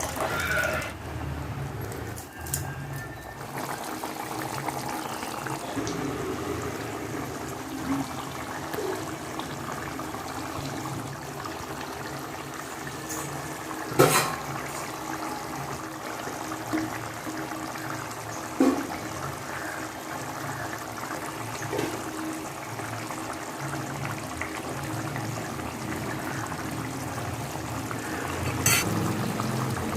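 A pot of brinjal curry (kuzhambu) simmering on the stove, with a steady bubbling, and a few sharp knocks, about 14, 19 and 29 seconds in.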